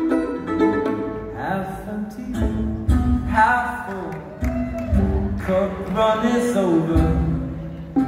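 Acoustic string band playing a slow song live: plucked guitar and mandolin chords under a gliding, wavering melody line, with low bass notes coming in now and then.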